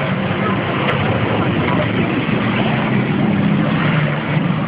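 Big diesel engines of racing trucks running hard through a corner and pulling away under load, black smoke pouring from the exhaust; a loud, steady engine drone.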